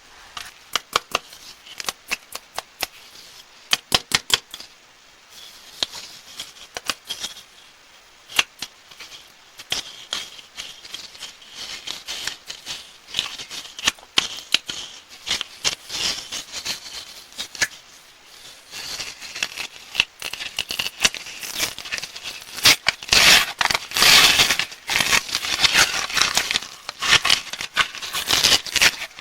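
Candy wrappers crinkling and crackling as sweets are unwrapped close to the microphone. The sound is a run of sharp crackles and clicks, scattered at first and becoming denser and louder over roughly the last ten seconds.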